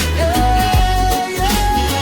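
Instrumental outro of a reggae song: a lead melody holding long notes over a heavy bass line and drums.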